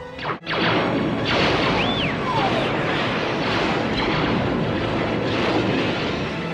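Science-fiction film battle sound effects: a sudden loud crash and then a dense roar of blasts and explosions. About two seconds in, a whistling tone rises, holds and falls, like a laser or ship fly-by.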